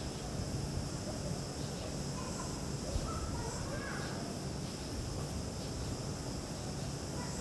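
Steady outdoor background noise: a low rumble under a constant high hiss, with faint, distant wavering calls about halfway through.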